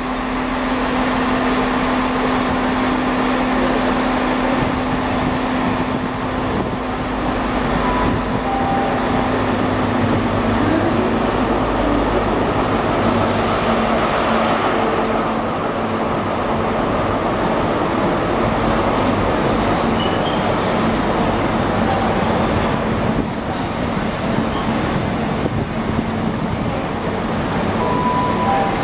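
High Speed Train (Class 43 diesel power car with Mark 3 coaches) moving slowly alongside the platform, its engine and wheels on the rails running steadily. The engine drone holds one note for about ten seconds, then rises in pitch.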